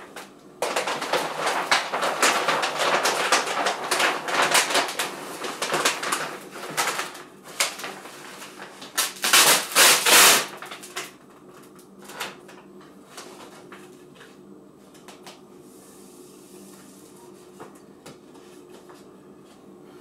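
Vinyl wrap film crinkling and rustling as it is handled, lifted and rubbed with a microfiber cloth against a refrigerator door. The crinkling is loudest about nine to ten seconds in, then drops to soft occasional rubbing over a faint steady hum.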